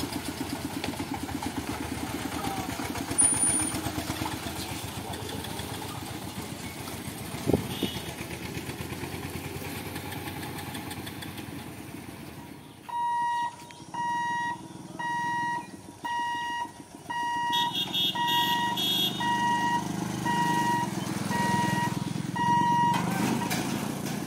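Motorcycle engine running amid level-crossing traffic, with two sharp knocks in the first half. About halfway in, the crossing's electronic warning beeper starts a steady, single-pitched beep roughly once a second, signalling that the barriers are closing for a train. A low rumble grows under the beeping near the end.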